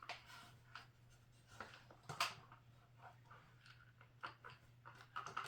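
Faint scattered clicks, knocks and scrapes of a dog nosing and pawing at a treat puzzle toy to get kibble out, the loudest knock a little past two seconds in, over a low steady hum.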